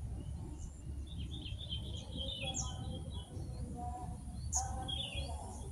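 Small birds chirping: several short bursts of high chirps and trills, over a steady low background rumble.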